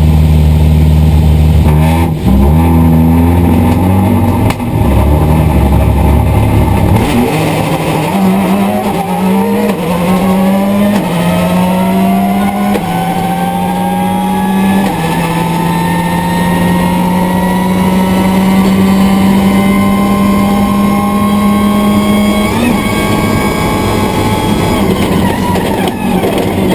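Subaru Impreza S11 WRC's turbocharged flat-four rally engine driven hard on a stage, heard from inside the car. The note steps through several gear changes while a whine climbs steadily with road speed. About 22 seconds in, the note drops suddenly as the driver lifts off.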